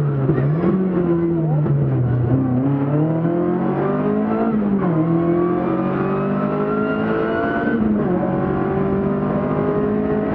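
BMW 2002 Ti rally car's inline-four engine pulling hard, heard onboard. Its pitch climbs and then drops sharply about three times, like gear changes.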